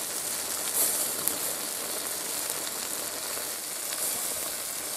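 Fish wrapped in banana leaf sizzling on a charcoal grill: a steady hiss with a few faint crackles.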